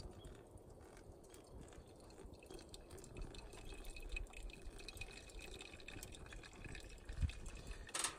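Hot water poured in a thin stream from a small metal pot into a paper pour-over coffee filter, trickling and dripping, with a wood fire crackling. About eight seconds in, a metal cup clanks as it is set down on the grill.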